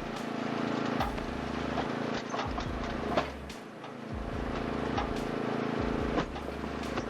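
Engine of a homemade firewood splitter running steadily, with repeated knocks and clunks roughly every second as wood is split.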